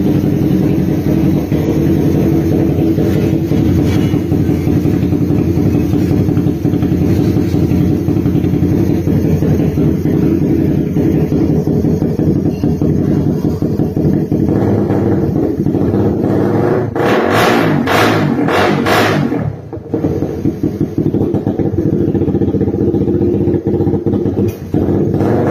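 Suzuki Raider 150's single-cylinder four-stroke engine running through an aftermarket exhaust, idling steadily. A run of quick throttle blips comes about two-thirds of the way in, then a short dip, and it returns to idle.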